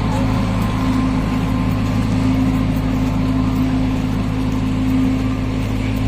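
An engine running steadily, a constant low hum with no change in pitch.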